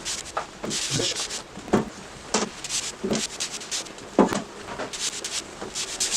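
Hand spray bottle squirting sugar syrup onto the wooden frames, a string of short hissing sprays roughly once or twice a second, each with a click of the trigger.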